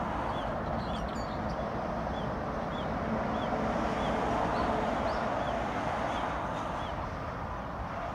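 Steady roar of expressway traffic, with a small bird repeating short high chirps throughout.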